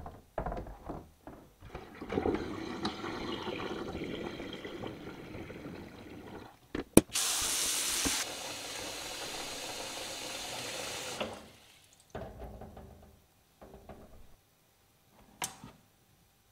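Kitchen tap running into a stainless-steel sink basin, filling it with cold water around a pot of hot wort to cool it. A sharp click about seven seconds in, after which the flow sounds hissier; the water shuts off about eleven seconds in.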